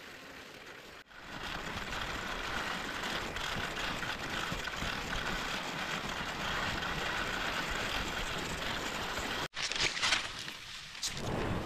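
Skis and a loaded pulk sliding over crusted snow, a steady scraping hiss. Near the end come a few sharp scrapes or knocks.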